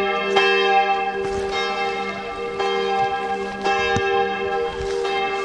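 Church tower bells ringing, struck about once a second, their tones ringing on and overlapping.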